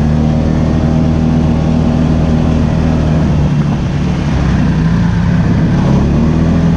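ATV engine running under way, heard close up with the rumble of the ride over it; the engine note eases off about halfway through and picks up again near the end.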